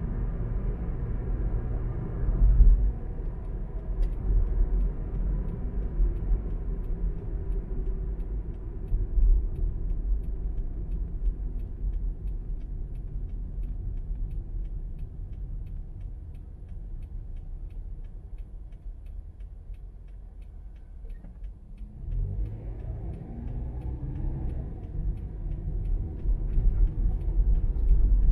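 Car driving: a steady low road and engine rumble that dies down as the car slows and waits at traffic lights, then the engine note climbs as it pulls away again about 22 seconds in. A faint regular ticking runs underneath.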